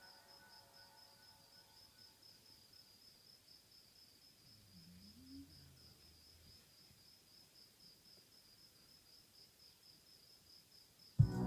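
Faint, steady, evenly pulsing chirp of crickets. A music track with drum beats starts suddenly just before the end.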